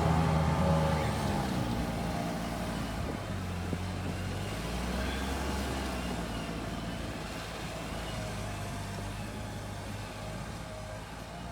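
A 4x4's engine running, loudest in the first second and then settling lower and steadier.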